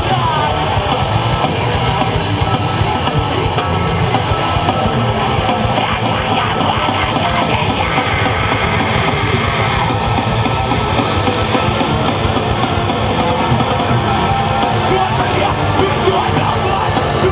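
Loud heavy rock music playing without a break.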